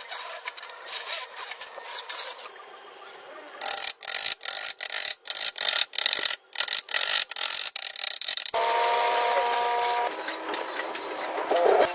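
Hand tools working wood: scraping and rasping strokes. From about four seconds in comes a run of even strokes, roughly two or three a second, like a saw cutting. A steadier rasping hiss follows near the end.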